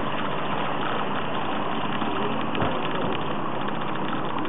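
A steady motor hum with a constant rushing noise over it, running evenly without change.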